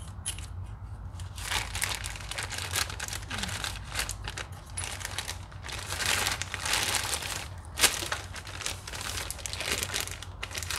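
Clear plastic parts bag crinkling and crackling as it is handled around a new ATV axle, with one sharp click about three-quarters of the way through.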